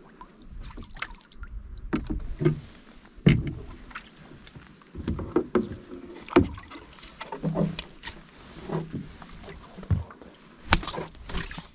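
Small boat moving on the water: irregular splashing and water sloshing, with several sharp knocks against the boat.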